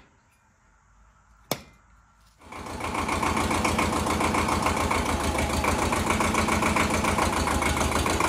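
A single sharp click, then about two seconds in the Ford 1700 tractor's three-cylinder diesel engine starts and settles into a steady, fast-pulsing idle.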